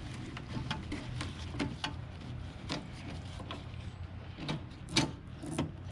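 Scattered light clicks and knocks of plastic parts and wiring being handled as a rewired bulb socket connector is fitted back into a 2014 Cadillac SRX headlight housing, the loudest knock about five seconds in. A steady low hum runs underneath.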